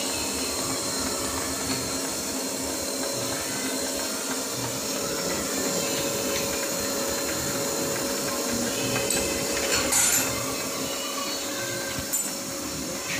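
Semi-automatic long cotton wick making machine running with a steady hum. A brief louder burst of noise comes about ten seconds in, and a couple of sharp clicks near the end.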